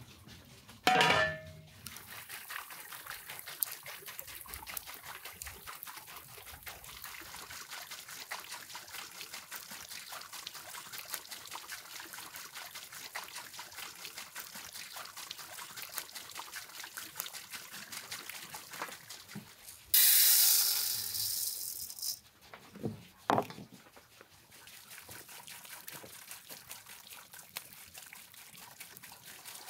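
Wood fire crackling steadily in a tall wire-mesh cage grill, with a sudden loud hissing rush lasting about two seconds about two-thirds of the way through. There is a loud knock about a second in and two sharp knocks soon after the hiss.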